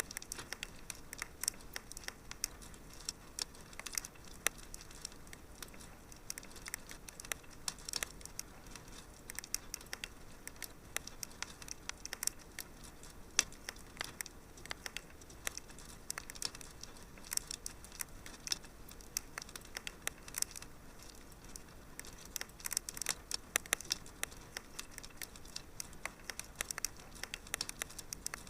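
Wood fire crackling in a fireplace: many irregular sharp snaps and pops over a soft steady hiss.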